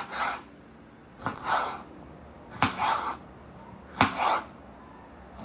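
Kitchen knife slicing a red bell pepper on a cutting board. There are four strokes about a second and a half apart, each a sharp knock of the blade on the board with a short scraping cut.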